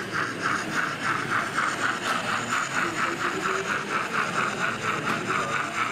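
Sound-fitted 00 gauge model steam locomotive chuffing steadily, about four beats a second, as it runs slowly.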